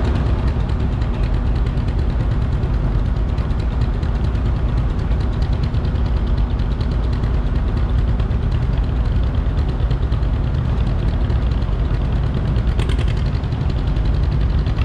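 Tractor engine idling steadily, a low, even rumble.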